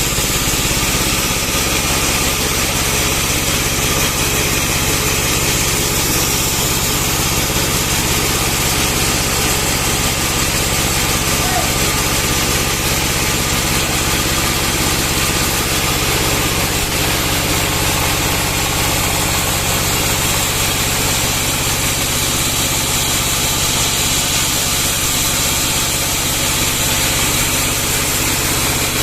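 Bandsaw sawmill running steadily: a constant engine drone with a dense hiss above it and no breaks.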